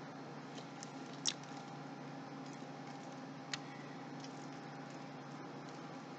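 A few light clicks and taps from small computer-case hardware being handled, over a steady low hum. The clearest click comes about a second in, and a fainter one past the middle.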